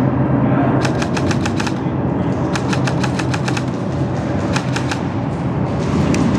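Airsoft guns firing in full-auto bursts: three strings of rapid clicking shots, the first two about a second long and the last one short. A steady low hum runs underneath.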